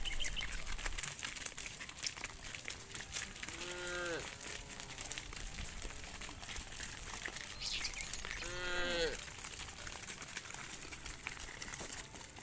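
Cows in a herd mooing: two short moos about four seconds apart, each bending down in pitch at the end, over scattered light clicking.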